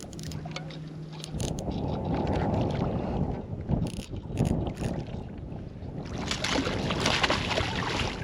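Wind rumbling on the microphone over water noise around a small skiff, with a faint steady hum in the first second and a louder stretch of hiss about seven seconds in.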